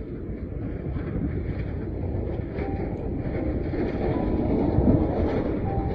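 Heavy snow-clearing machinery running: a dense, low, rumbling engine noise that grows steadily louder.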